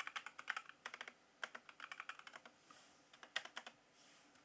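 Computer keyboard typing: quick runs of keystrokes in four short bursts with brief pauses between them.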